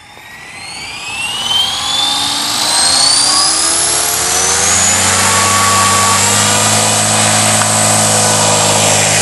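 Nitro engine of a Dragonus II N-Plus RC helicopter spooling up the rotor with a whine that rises in pitch for about four seconds, then running at a steady head speed.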